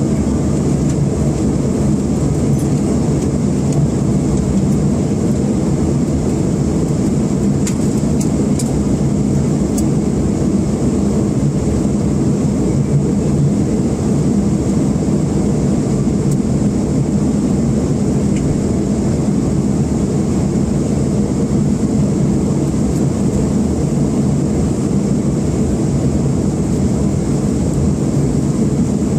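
Airliner cabin noise on the approach to landing: the steady low rumble of the jet engines and airflow, with a thin steady high tone above it.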